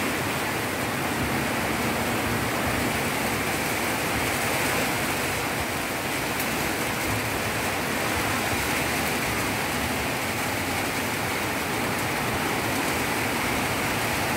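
Heavy tropical downpour falling steadily, a dense even hiss that holds without a break.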